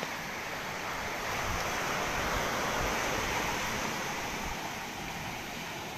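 Rough storm surf washing up the beach, with wind buffeting the microphone. The rush swells to a peak about halfway through and then eases. The waves are about one to two metres, driven by Tropical Storm Pabuk.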